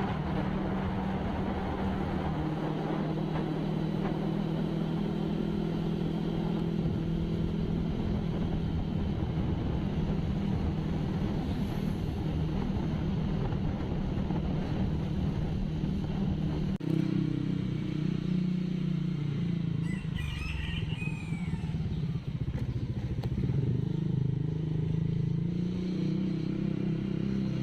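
A motor vehicle's engine running steadily, its note shifting about seventeen seconds in, with a brief high chirping sound a few seconds later.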